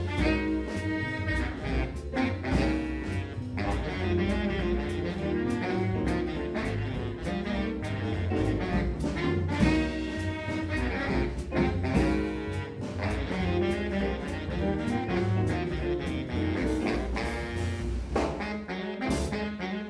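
Background jazz music with saxophone and brass over a steady drum beat.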